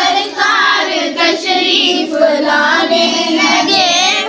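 A high, child-like voice singing a melody, the pitch bending from note to note, with a wobbling held note near the end.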